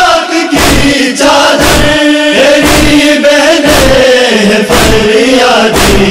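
Male voices chanting a Shia noha, holding a long drawn-out sung line between verses. Sharp strikes beat through it steadily, roughly once a second, the beat of matam (hand strikes on the chest) keeping time with the lament.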